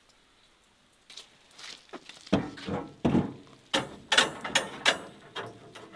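A thin rod strung with raw chicken legs knocking and rattling as it is set onto the rack of a wooden smokehouse: a run of sharp knocks with a few metallic clinks, starting about two seconds in and loudest about four seconds in.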